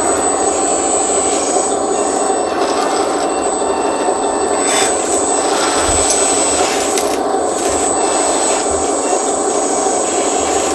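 Electric motors and hydraulic pump of a 1:14 scale RC hydraulic skid steer loader running, a steady whirring with a thin high whine over it.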